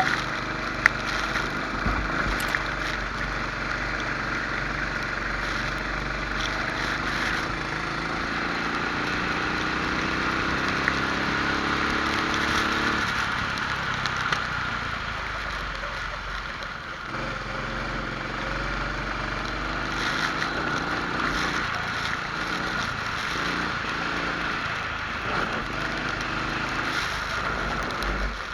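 Rental kart engine running under racing load, its pitch climbing steadily as the kart gathers speed, dropping off about 13 s in, then climbing again from about 18 s, over a steady hiss.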